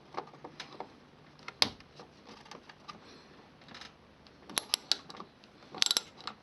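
Hand tool with a T30 Torx bit working the bolts of a Volkswagen Passat's bonnet lock: scattered metal clicks and taps, with two short runs of quick clicking in the last two seconds.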